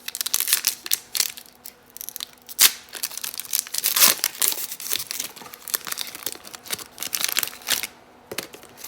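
Plastic trading-card pack wrapper being torn open and crinkled, an irregular run of crackles that is loudest twice in the middle and dies away near the end.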